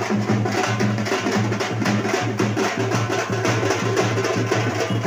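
Fast, steady drumming with a low drone underneath: percussion-led festival procession music.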